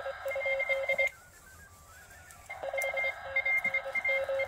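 Electronic beeping tones at several fixed pitches, keyed on and off in a rapid uneven pattern. About a second in they give way to a quieter run of tones stepping up and down in pitch, then the keyed beeping resumes.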